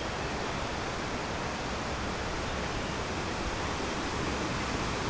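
Steady rush of a mountain stream running over boulders, an even hiss with no breaks.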